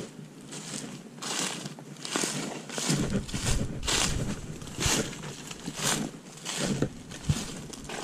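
Footsteps crunching through dry fallen leaves and pine needles at a steady walking pace, about one step a second.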